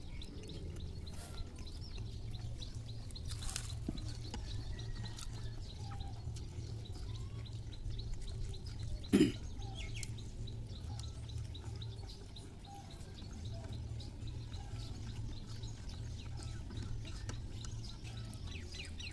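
Quiet eating sounds of rice and curry being mixed and scooped by hand on a plate, with birds chirping faintly over a steady low rumble. One sharp knock about nine seconds in is the loudest sound.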